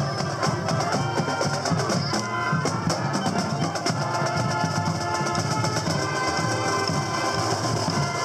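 Marching band playing: saxophones and brass carry a tune over a steady beat of bass and snare drums.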